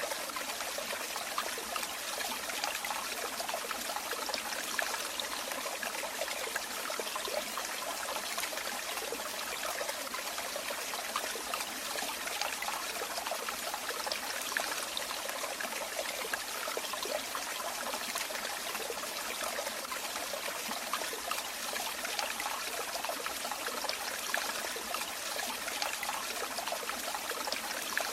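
Running water trickling and splashing steadily, a continuous bright rush made up of countless small splashes.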